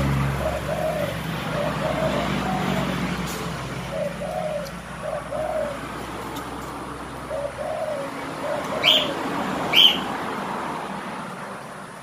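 Spotted dove cooing: a series of soft two- and three-note phrases, with a low steady hum underneath that stops about halfway. Two short, sharp high chirps come near the end, and the cooing fades out.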